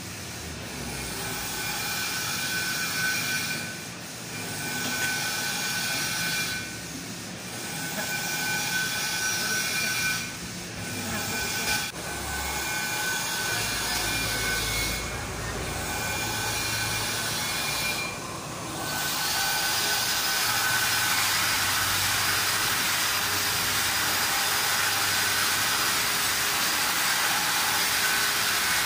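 Metal lathe running: a steady whine over machine hiss, breaking off briefly about five times before settling into a steadier, louder run about two-thirds of the way through.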